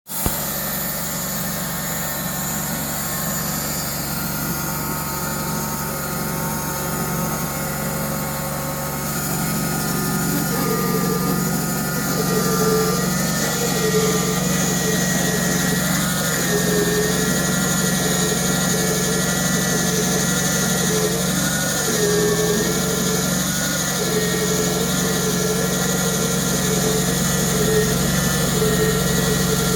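Gas engine of a sawmill running steadily while milling a red maple log; about ten seconds in it gets louder and its pitch starts to waver, as under the load of the cut.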